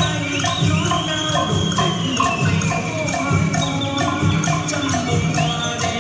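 Traditional Vietnamese ensemble music for water puppetry: a steady jingling, clicking percussion beat over low drum strokes. A high melody line slides up into long held notes and then eases down.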